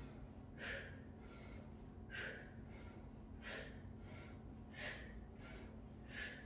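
A woman breathing out sharply with each side crunch, five short exhales about a second and a half apart.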